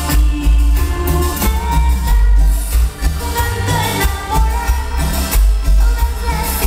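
Latin dance music played loud over a sonidero sound system, with a heavy bass beat and singing.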